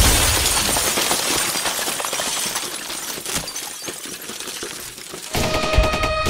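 Sound effect of shattering, crumbling debris, a dense crackling hiss with scattered clinks that fades away over about five seconds. Near the end a low rumble and a steady two-tone hum come in suddenly.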